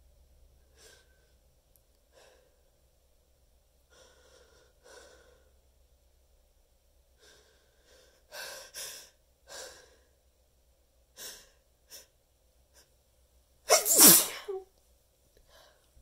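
A person building up to a sneeze: a string of short, catching inhales that get louder, then one loud sneeze about fourteen seconds in.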